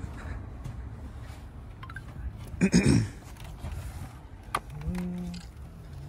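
A few light clicks from plastic engine-bay parts and connectors being handled, over a steady low rumble. A short voice sound about three seconds in and a brief hum near the end.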